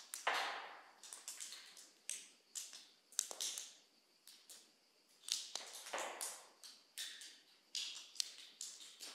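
Water drops falling from the ceiling of a karst cave, dripping at irregular intervals with about a dozen sharp plinks. Each plink echoes in the large chamber; the loudest come just after the start and about six seconds in.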